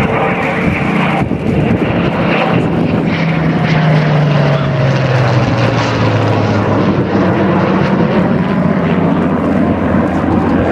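A Spitfire and a Eurofighter Typhoon flying past together, their engine noise loud and steady, with the engine pitch falling as they pass.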